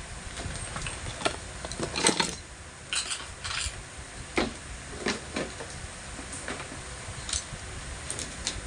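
Irregular clinks and knocks of small hard objects being handled, about a dozen over several seconds, the loudest cluster about two seconds in, over a steady low rumble.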